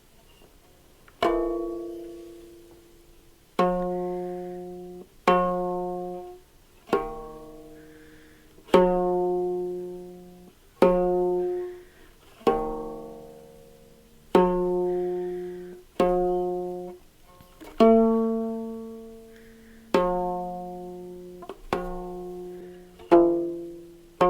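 A stringed instrument from Ethiopia played with single plucked notes, slow and spaced out, each ringing and fading before the next, about one note every one and a half to two seconds.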